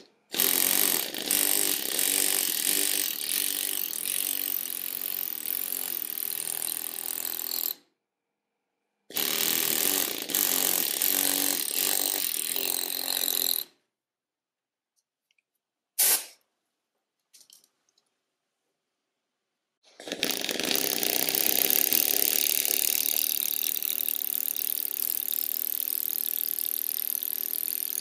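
F+K pneumatic lettering hammer driving a steel chisel into Irish blue limestone, rattling away in rapid blows. It runs in bursts with full stops between: a long run, a shorter one, a brief blip about sixteen seconds in, then a steady run again from about twenty seconds in.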